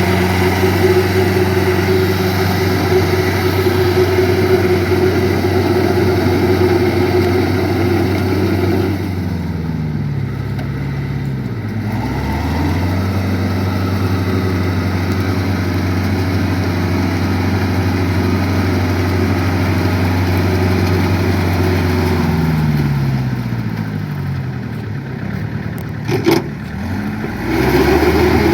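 Tractor engine running steadily, its speed dropping and then climbing back up twice, once about ten seconds in and again near the end, with a single sharp click just before the second rise.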